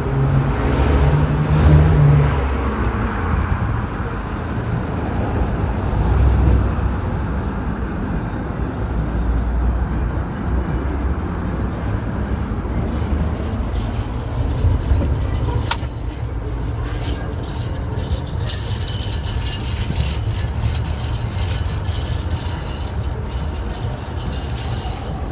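City street traffic rumbling steadily as cars pass. In the first couple of seconds a vehicle's engine hum rises and then fades.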